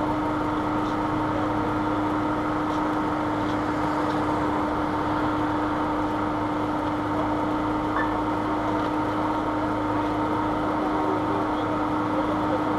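A steady hum with one constant, unwavering pitch over a low noisy drone, running without a break.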